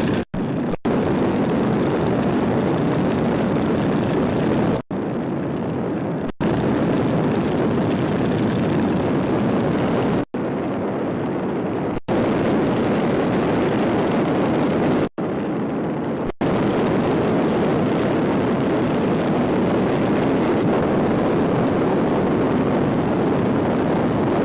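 Boeing Stearman biplane's radial engine and propeller droning steadily under heavy wind rush, heard from inside the open cockpit. The sound drops out abruptly about eight times, and a few stretches between the drop-outs sound duller.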